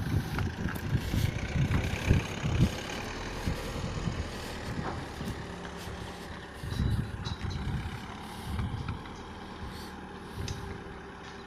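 Wind buffeting the microphone in irregular low rumbling gusts, over the faint low running of a car's engine as it slowly reverses a box trailer.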